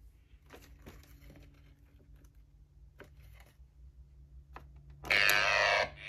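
Scattered light clicks and taps from a hand at a Gemmy Freaky Geeks animatronic monster's box, then about five seconds in the figure activates and plays loudly from its built-in speaker, its pitch gliding up and down, with a brief break near the end.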